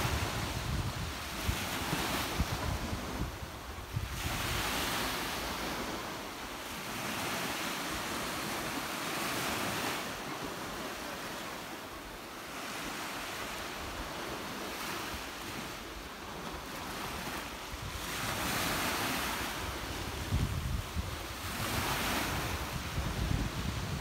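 Small Black Sea waves washing onto a sandy shore, a steady hiss that swells and falls back every few seconds. Wind buffets the microphone with low rumbles at the start and again near the end.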